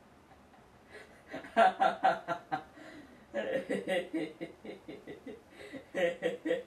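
A person's laughter in three bouts of quick, repeated chuckling pulses, starting about a second in, again about three seconds in and near the end.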